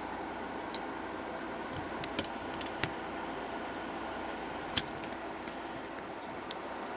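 Steady room hum with a few faint, sharp clicks and taps of handling, the loudest about five seconds in.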